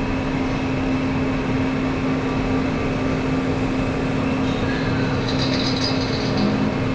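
Steady machine noise with a constant low hum, unchanging and without pauses.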